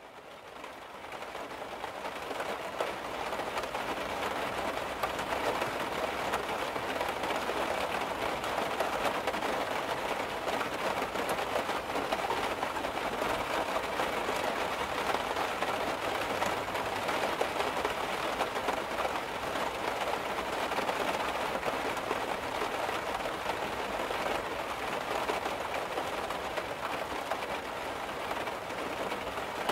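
Steady rain falling on wet pavement and a car, fading in over the first few seconds and then holding level.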